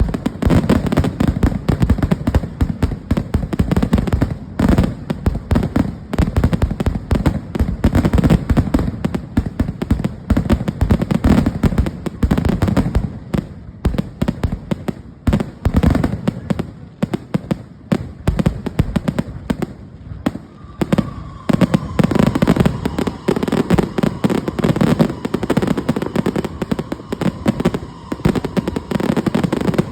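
Fireworks going off in rapid succession: a dense, continuous barrage of bangs and crackles, thinning briefly about halfway through and then picking up again. A faint thin tone runs underneath in the last third.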